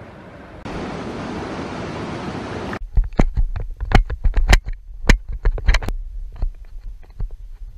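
A mountain river rushing steadily for about two seconds. Then wind buffets a GoPro microphone, and irregular sharp crunches and knocks come at two or three a second: footsteps on loose stones and gravel.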